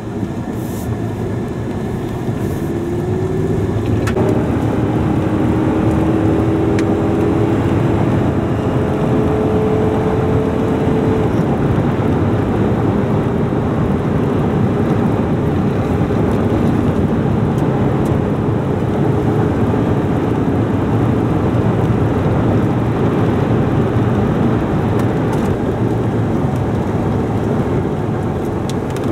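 A car driving off and running at speed, heard from inside the cabin: steady engine and road noise that builds over the first few seconds, with a faint engine tone rising and then holding.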